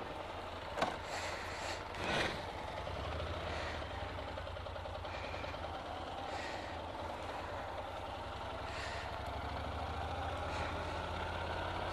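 Honda NC750X's parallel-twin engine running steadily at low speed, heard from the rider's seat, with a short click about a second in and a brief louder sound a little after two seconds.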